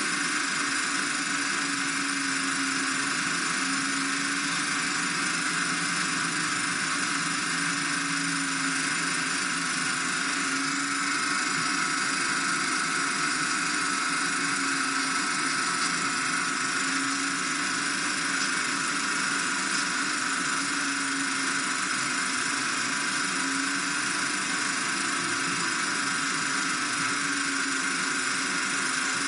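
A steady whirring hiss with a faint low hum that wobbles in pitch every second or two.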